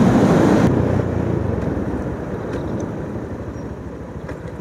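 Riding noise from a motorcycle: wind rushing over the rider's microphone together with the engine and tyres, fading steadily as the bike slows.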